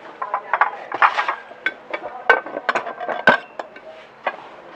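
Ceramic plates clinking and knocking against one another as a large round ceramic rice dish is slid out of a stack on a shelf: a string of sharp, irregular clinks, a few of them ringing briefly.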